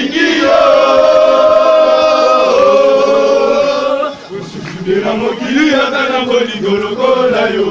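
A crowd of men singing together: long held notes for about the first half, then after a short dip a looser, rising-and-falling chant.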